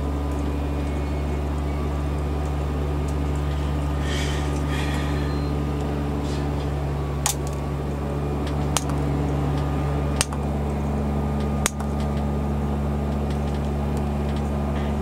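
Four sharp snips, about a second and a half apart, as side cutters clip plastic kit parts off a sprue. Under them runs a steady low machine drone from gardening equipment next door.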